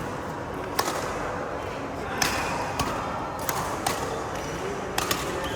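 Badminton rackets striking a shuttlecock during a rally: a series of sharp smacks at uneven intervals, several in a few seconds.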